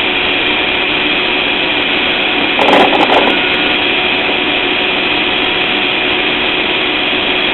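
IPS TPV-350 heating-type valve making a loud, steady hissing noise with steady whistling tones, the abnormal noise that came with vibration at the valve. About three seconds in, a brief louder rattle with a few sharp clicks cuts across it.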